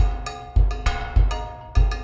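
Background music with a steady beat of deep drum hits and short, ringing pitched notes.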